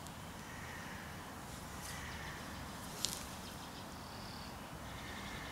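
Outdoor street ambience: a steady low rumble with faint, thin high sounds, broken by a single sharp click about three seconds in.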